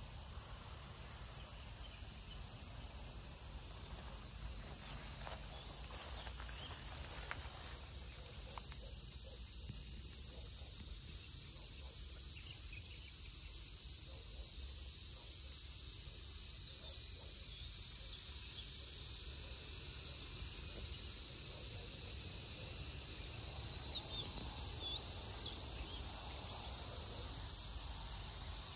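Insects chirring outdoors: a steady, high-pitched drone of rapid even pulses, with a few faint clicks about six seconds in.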